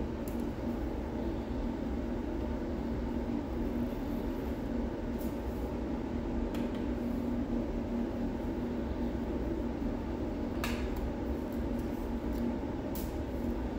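Steady low background hum, with a handful of faint clicks from a small screwdriver turning the metal cover screws of a 2.5-inch laptop-size hard drive.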